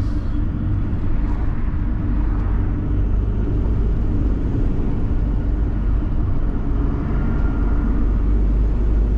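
Steady low rumble of engine and tyre noise heard inside the cab of a vehicle driving along a paved road.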